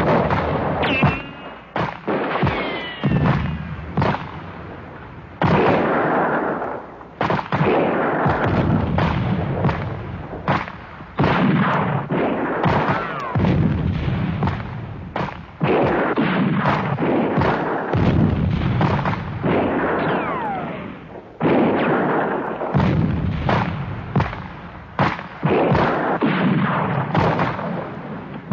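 Battle sound effects: a dense barrage of explosions and gunfire, one sudden blast after another, each dying away over a second or so, with now and then a falling whistle.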